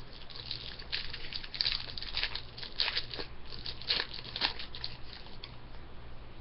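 Crinkling and rustling of a hockey card pack's wrapper and cards being handled, in irregular crackly bursts that die down about five and a half seconds in, over a low steady electrical hum.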